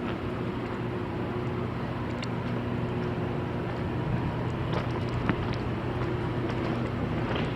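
An engine running steadily at an even pitch, with a few faint clicks and knocks on top.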